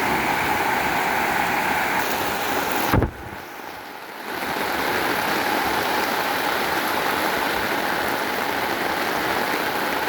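Heavy downpour of rain, with water rushing off a roof that overflows its gutters, as a steady rushing hiss. About three seconds in there is a short knock, then the sound drops away for about a second before the rain noise returns.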